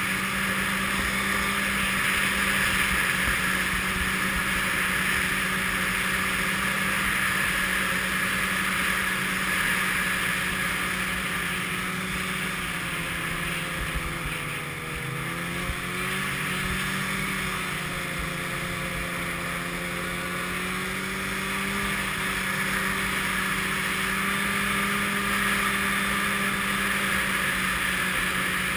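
Snowmobile engine running steadily at cruising speed, with wind noise over the camera. About halfway through, the engine note dips briefly and then climbs back.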